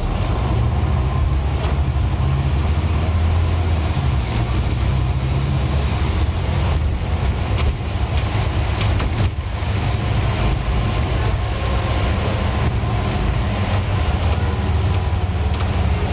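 Scania N94UD double-decker bus heard from inside on the move: its diesel engine runs steadily and low, with a faint steady whine above the road and body noise.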